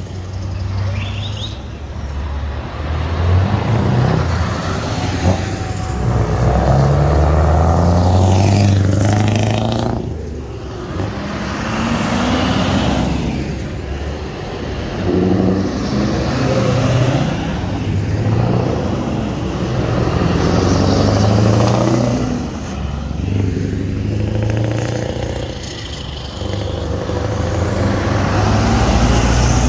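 A convoy of heavy lorries passing one after another, their diesel engines swelling as each goes by and dying away, with revving and gear-change pitch glides; a Scania tractor unit passes close near the end.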